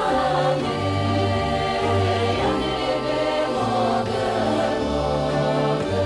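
Bulgarian folk song: voices singing long held notes over instrumental accompaniment, with a bass line stepping from note to note underneath.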